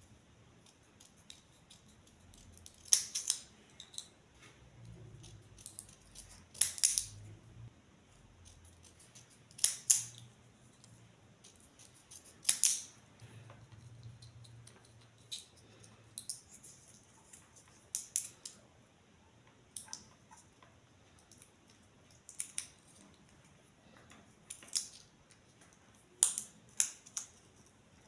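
Scissors snipping through plastic drinking straws: a sharp snip every two to three seconds, with quieter handling of the plastic pieces between cuts.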